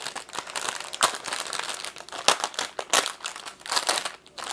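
Small plastic bags of diamond-painting drills crinkling and rustling as they are handled, a run of quick irregular crackles.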